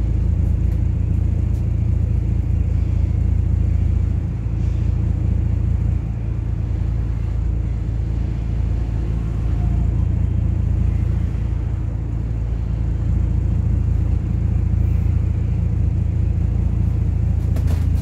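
Steady low rumble of a bus engine and its running gear, heard from inside the passenger cabin, with a constant low hum and the level dipping slightly now and then.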